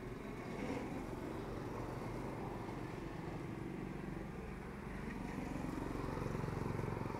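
Steady low rumbling background noise with a faint constant low hum, without distinct events.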